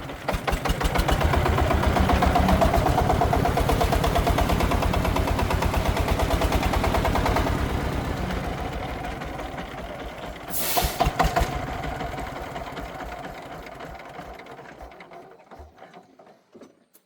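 Single-cylinder diesel engine of a Vietnamese công nông farm truck running with a rapid, even thump. It grows louder over the first two seconds, then fades steadily to almost nothing near the end. A brief hiss cuts in about eleven seconds in.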